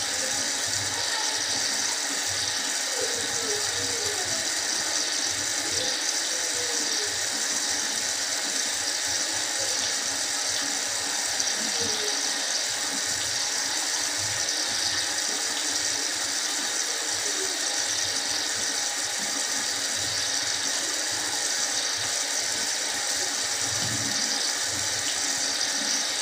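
A toothbrush scrubbing teeth, a rough back-and-forth rasping, over the steady hiss of water running from a bathroom tap.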